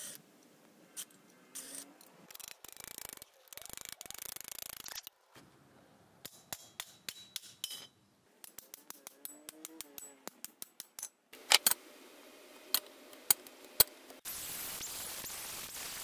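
An edited run of short metalworking sounds: clicking and clanking of steel parts with a cordless impact wrench, a few sharp hammer blows on steel tubing, then an angle grinder cutting steel with a steady noise from near the end.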